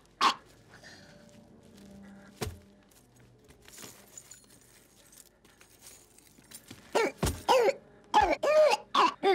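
A mostly quiet room with one faint knock about two and a half seconds in, then a person's strained coughing and gasping in a run of short fits through the last two seconds or so.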